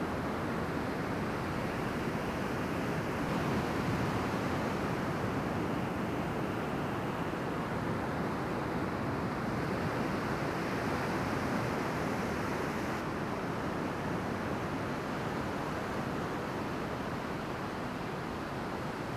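Steady rush of ocean surf breaking and washing toward the shore, with some wind noise on the microphone.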